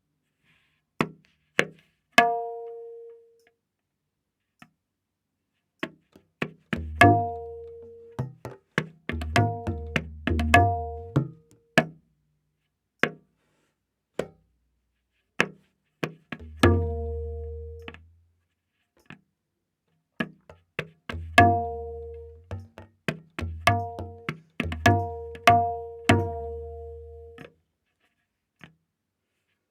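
Tabla playing a slow vilambit ektaal theka, the right-hand dayan tuned to A# and ringing on its open strokes, with deep bass strokes from the left-hand bayan. There are only a few light strokes for the first several seconds, then clusters of ringing strokes and bass.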